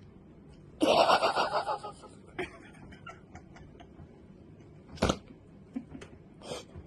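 A second-long burst of snickering laughter near the start, then a single sharp hiccup about five seconds in.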